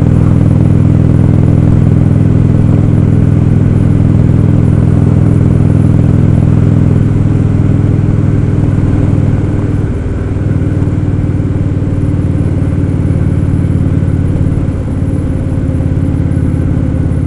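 Indian Roadmaster's air-cooled V-twin engine running steadily at road speed, heard from the rider's seat. The engine note eases off briefly twice, about ten and fifteen seconds in, before settling back.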